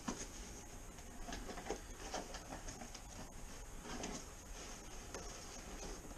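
Hands rummaging through packing material in an opened cardboard box: faint, scattered rustles and small taps.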